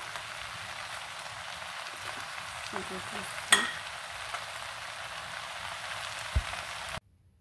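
Stir-fried noodles and peppers sizzling in a frying pan, a steady hiss, with one sharp click about halfway through and a low thud near the end. The sizzle cuts off suddenly near the end.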